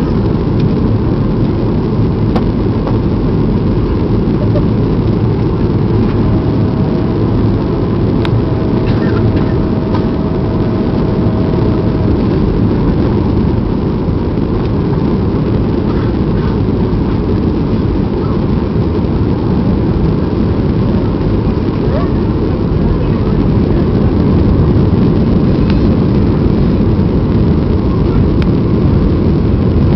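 Steady cabin noise inside a Boeing 737-800 on its approach with the flaps extended: the low drone of its CFM56-7B turbofan engines mixed with rushing airflow, growing slightly louder in the last few seconds. A faint thin steady tone sounds for several seconds about a quarter of the way in.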